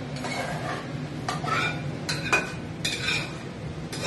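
Spatula scraping tomato pulp out of a pan into a steel pot: a series of short scrapes and clinks against the pan and pot rims.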